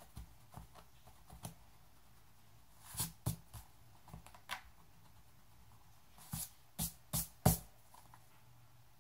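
Pen marking paper in a sketchbook: a string of short scratchy strokes and taps. Louder ones come in two groups, about three seconds in and again around seven seconds, where the loudest falls.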